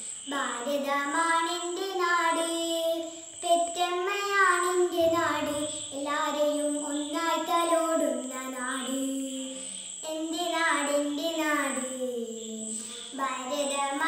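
A young girl singing a Malayalam patriotic song solo, in long held phrases of a few seconds each.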